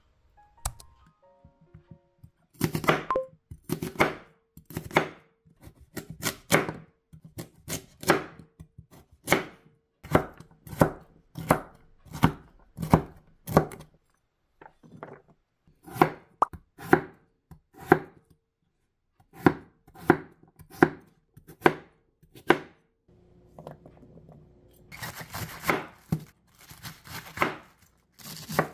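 Kitchen knife chopping vegetables on a wooden cutting board: single sharp cuts, about one or two a second, then a quicker, scratchier run of slicing near the end as a cabbage is cut.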